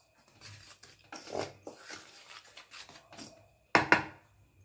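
Wooden spoon stirring dry roasted ragi flour in a stainless steel bowl: a series of soft scraping strokes, then two sharp knocks close together near the end as the spoon hits the bowl.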